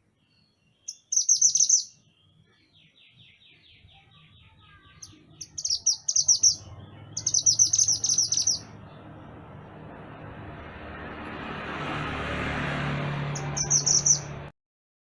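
Mantenan gunung songbird singing short, fast trilled phrases, several in a row. A fainter trill runs between them. In the second half a low background rumble swells, and everything cuts off abruptly shortly before the end.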